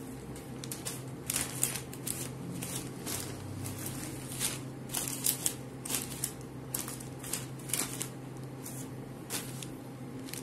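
Wrapping paper around a bouquet rustling and crinkling in short, irregular bursts as the wrapped bouquet is handled and turned.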